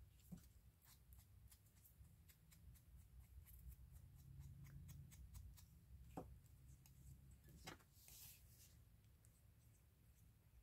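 Near silence, broken by faint scattered ticks and rustles of paper being handled and cut, with two slightly louder light taps about six and seven and a half seconds in.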